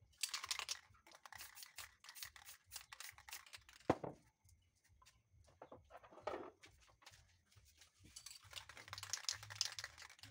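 Aerosol spray paint can hissing in short bursts, with light clicks and taps as the can and a round paper mask are handled between passes. There is a single louder knock about four seconds in.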